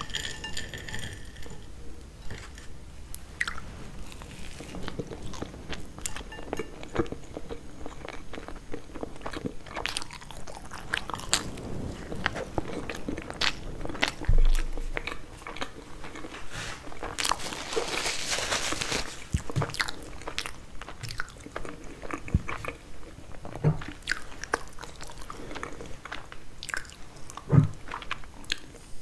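Close-miked eating of Napoleon cake: its flaky puff-pastry layers crunching and crackling as they are bitten and chewed, with small clicks of a fork on a plate. There is a low thump about halfway through and a sharp knock near the end.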